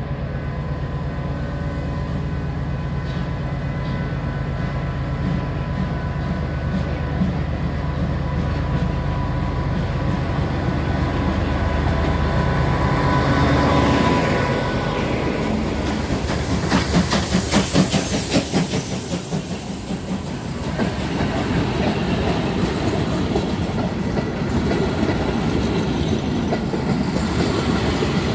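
FS D445 diesel locomotive approaching and passing close, its engine drone building to a peak about halfway through. Vintage passenger carriages then roll by, clattering rhythmically over the rail joints.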